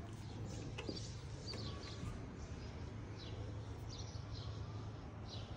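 Small birds chirping, with short high chirps repeated over and over, over a steady low outdoor hum. A single sharp click about a second in.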